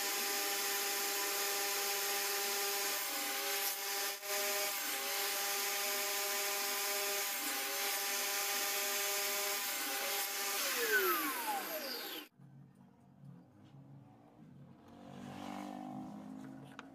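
Homemade table saw running steadily at full speed with a high whir. About eleven seconds in it is switched off and its pitch falls as the blade winds down, then the sound stops abruptly, leaving a faint low rumble.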